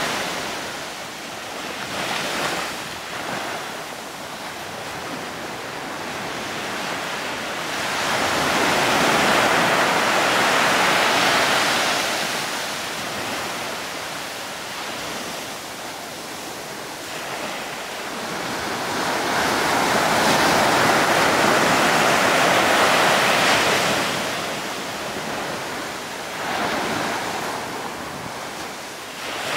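Sea waves washing onto the shore: a steady rush of surf that swells up twice, each surge lasting a few seconds, then eases back.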